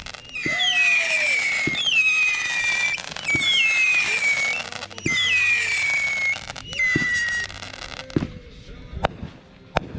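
Consumer fireworks going off: about five whistling shots fired one after another, each a high whistle falling in pitch, with sharp pops between them, then a few separate bangs near the end.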